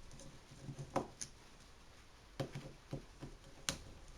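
Scattered light clicks and knocks from handling the opened electric drill's parts and tools while taking the power cord off, the sharpest click coming near the end.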